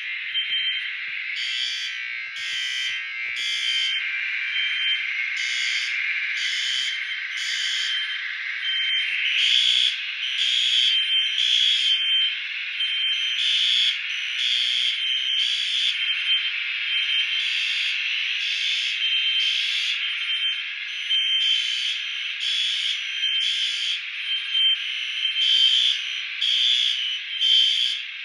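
Fire alarm system sounding: a steady electronic alarm tone overlaid with rapid, unevenly spaced pulsing beeps. The steady tone shifts a little higher about nine seconds in.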